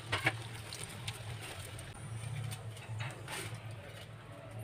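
Fried kachoris being lifted out of hot oil in a steel kadhai with a slotted spoon. Two quick metal clinks of the spoon against the pan about a quarter second in, over faint sizzling of the frying oil that thins out as the pan empties, with a low pulsing hum underneath.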